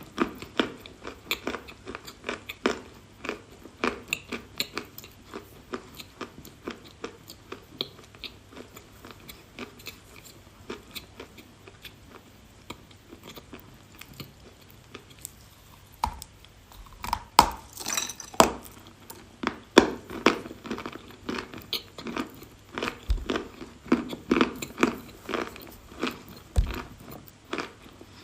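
Close-mouthed crunching and chewing of edible clay, the 'kashtan' (chestnut) variety: a quick run of small crisp crunches, thinning out through the middle. Harder, louder bites come in the second half.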